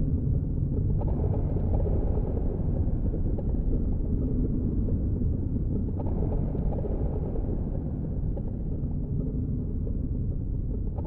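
Steady low rumble of wind buffeting an action camera's microphone as a snowboard slides down a snowy slope, with the board running over the snow underneath.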